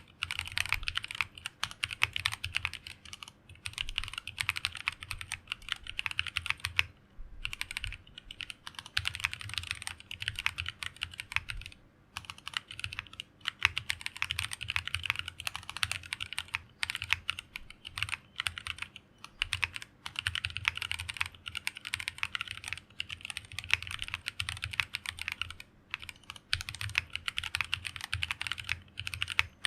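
Fast typing on a mechanical keyboard with stock JWK-made Tropical linear switches, 63.5 g, with polycarbonate tops and nylon bottoms, in a plateless BM60 Poker build: dense runs of keystroke clicks broken by short pauses.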